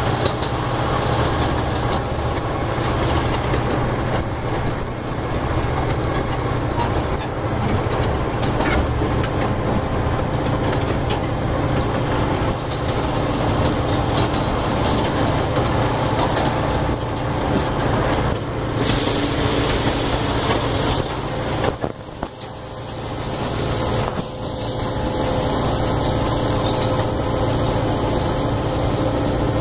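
Steady running noise of a small ride train heard from aboard: a low engine hum and rolling rumble, with the level dipping briefly about three-quarters of the way through.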